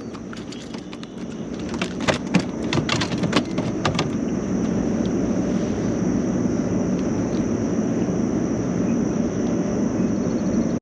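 Sharp clicks and knocks between about two and four seconds in as a just-caught redfish is handled aboard a kayak, over a steady rushing noise and a high steady whine.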